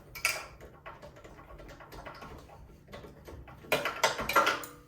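Light metallic clicks and taps of hand tools working on the snowblower engine as the spark plug is removed, with a denser cluster of clicks about four seconds in.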